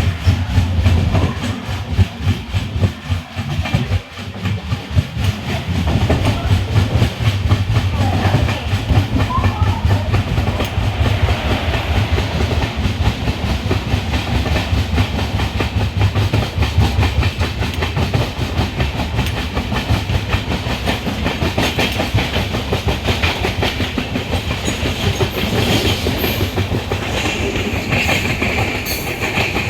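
Express passenger train running on rails, with a low rumble and a fast, steady clatter of wheels over rail joints. The sound dips briefly about four seconds in, then stays loud.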